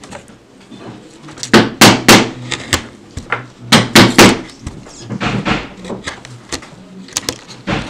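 A wood-carving chisel struck into wood with a mallet: two bursts of three loud knocks about two seconds apart, with lighter taps scattered before and after.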